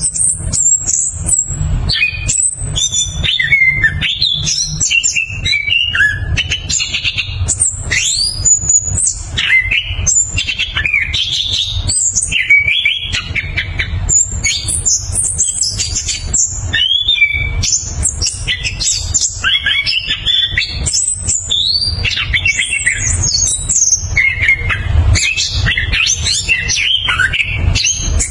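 Chestnut-capped thrush (anis kembang) singing a long, unbroken run of rapid, varied whistles and trills, with a low rumble underneath.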